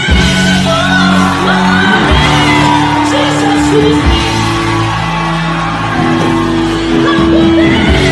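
Live gospel worship music: a female singer belting long held notes over a band through the hall's PA system.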